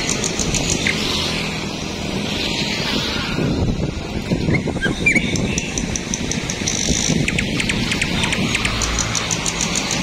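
Steady rumble of road traffic, with small birds chirping over it in quick, high-pitched runs of notes and a few short rising chirps.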